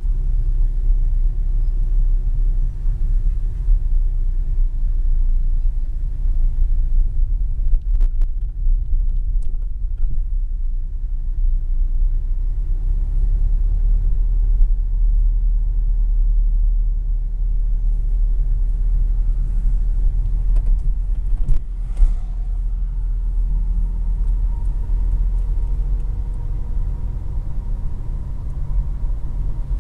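Steady low rumble of a car driving along a road, with a faint rising engine tone in the middle and a couple of brief knocks, one about eight seconds in and one about twenty-two seconds in.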